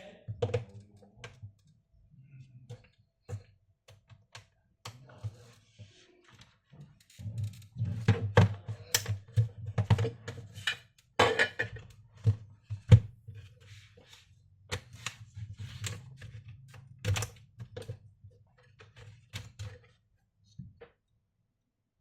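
Irregular clicks, taps and knocks of hands working on a laptop's plastic case, busiest in the middle, with a few louder knocks.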